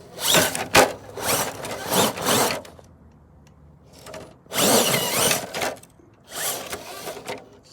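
RC truck's electric motor and drivetrain whirring in four bursts of throttle, with a sharp knock just under a second in.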